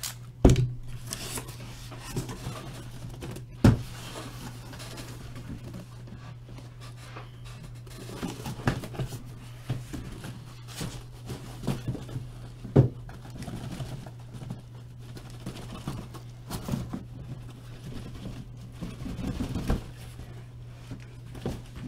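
Cardboard boxes being lifted out of a shipping case and set down: rustling and scraping with a few sharp knocks, over a steady low hum.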